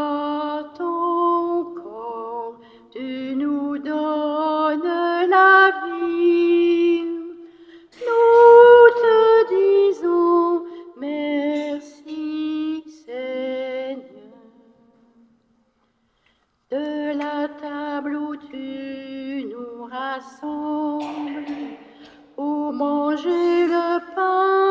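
A voice singing a hymn without accompaniment, in slow sung phrases, with a pause of about two seconds just past the middle.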